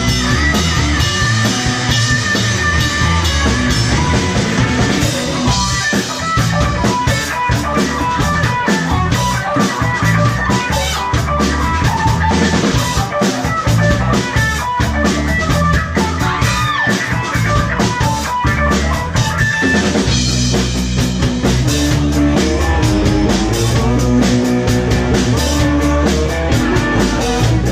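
Funk-rock band playing live through an instrumental stretch, with electric guitar over a busy drum kit.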